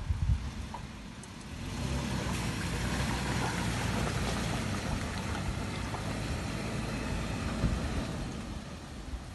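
Toyota Land Cruiser Prado 120's engine running under load while driving through ruts. A steady noisy hiss of tyres and ground joins the engine about two seconds in.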